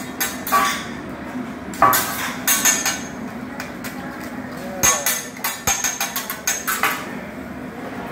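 Metal spatulas clacking and scraping on a teppanyaki flat-top griddle, in irregular clusters of sharp clacks, as the hibachi chef works eggs on the hot plate.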